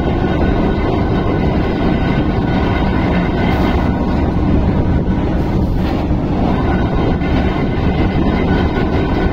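Diesel railway crane's engine running steadily under load as it hoists a heavy wheelset, a loud, even rumble.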